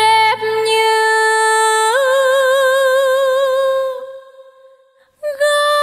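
Music: long held melodic notes with vibrato. The pitch steps up about two seconds in, the sound fades out around four seconds in, and a higher held note comes in near the end.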